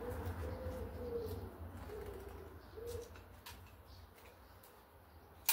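A pigeon cooing: a short run of low, wavering coos over the first three seconds. A single sharp click comes right at the end.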